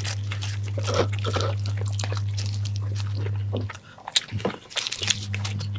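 Close-up chewing and biting of shawarma, soft bread and filling, heard as scattered small clicks and smacks of the mouth. Underneath runs a steady low hum that cuts out past the middle and comes back near the end.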